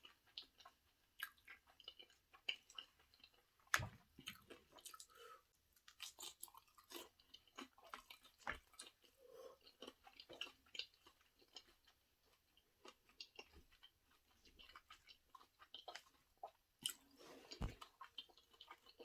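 Close-miked chewing of sushi: many soft, wet mouth clicks and smacks at an uneven pace, with a sharper knock about four seconds in and another near the end.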